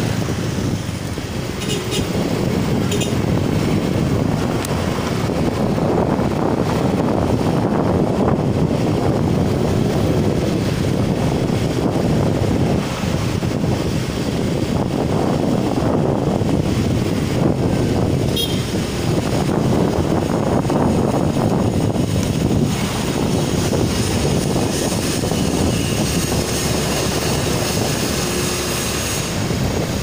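Wind buffeting a helmet headset microphone on a moving motorcycle: a loud, unsteady rushing noise.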